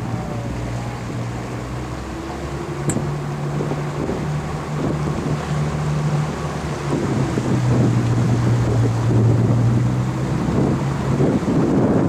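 An engine hums steadily, its pitch stepping up and down a few times. Wind rumbles on the microphone, heavier in the second half.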